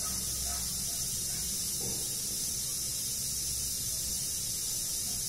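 Steady high hiss with a low hum beneath it: the background noise of the room and recording.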